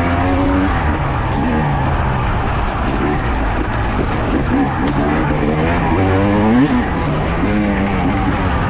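Two-stroke enduro motorcycle engine ridden hard on a dirt trail, its revs rising and falling with the throttle every second or two.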